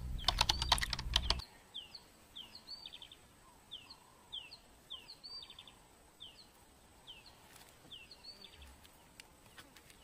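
A quick run of keyboard-typing clicks, a sound effect for a caption being typed out, in the first second and a half. Through the rest, a bird repeats short falling chirps, about two a second, over quiet outdoor ambience.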